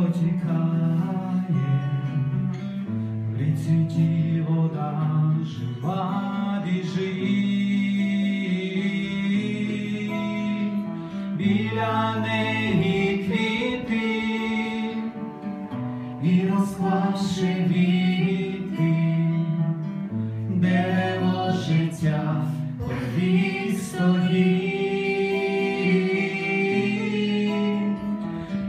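Acoustic guitar strummed as accompaniment to a man and a woman singing a Ukrainian Christian song.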